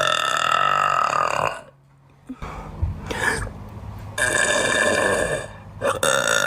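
A girl burping loudly: a long burp lasting about a second and a half, a second long burp a little after the middle, and a third starting near the end.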